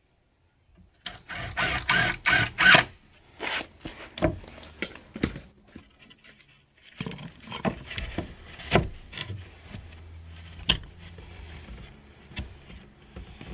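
Irregular knocking and clattering of hard objects being handled: a dense flurry of clatter about a second in, scattered knocks after, a brief pause, then more knocks over a low steady hum.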